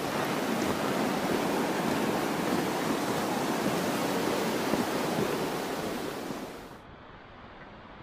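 Steady outdoor rushing noise at an even level. About seven seconds in it drops away suddenly, leaving a fainter hiss.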